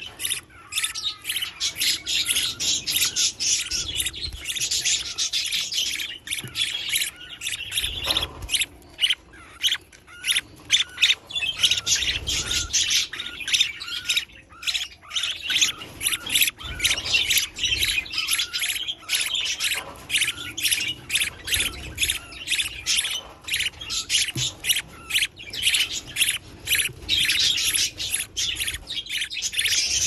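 Budgerigars in a nest box giving rapid, high chirping calls with no break, the begging calls of chicks as their parents feed them.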